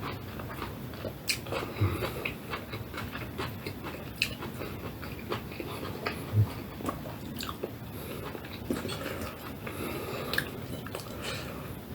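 Close-up eating sounds: a person chewing and biting a meal of rice, spinach, fried egg and fried potatoes, with irregular wet clicks and smacks of the mouth. Two dull thumps, one about two seconds in and a louder one about six seconds in.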